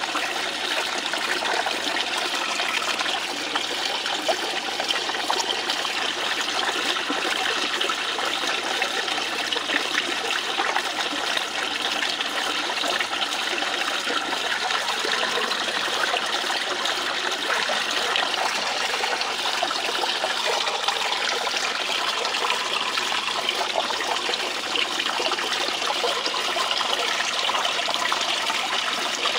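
Steady trickle of water flowing across a DIY miller table's sloped deck, slowly washing black-sand gold concentrate down the table.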